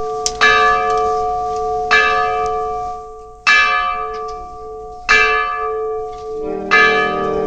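A church bell tolling, struck five times at an even pace of about one strike every second and a half, each stroke ringing on and slowly fading into the next. Near the end a second, lower-pitched tone joins in.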